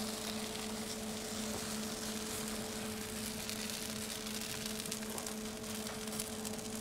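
Steady hum with two constant tones under a broad hiss, from kitchen equipment running, with a few faint clicks in the second half.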